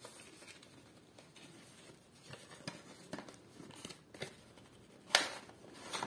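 Cardboard retail box of an SSD being opened by hand and its plastic inner tray slid out: faint rustling and scattered small clicks, with a sharper click about five seconds in.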